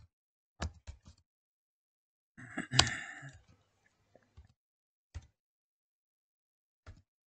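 Computer keyboard typing: a few separate key clicks, with a short louder cluster of clatter about two and a half to three and a half seconds in.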